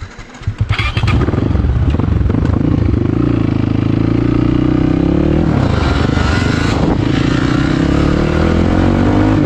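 Yamaha MT-15 motorcycle engine running under way, coming in loud about a second in, its pitch dipping and climbing again twice as the bike changes speed on the rough road.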